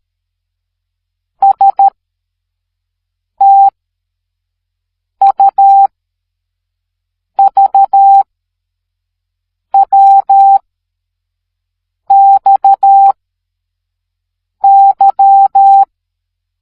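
Morse code played as a steady mid-pitched electronic beep, keyed in dots and dashes. Seven separate characters about two seconds apart, each a short group of short and long beeps, with silence between them.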